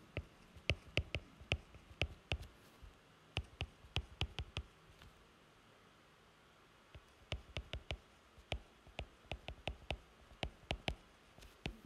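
Stylus tip tapping and sliding on a tablet screen as letters are handwritten: a run of sharp little clicks, with a pause of about two seconds in the middle.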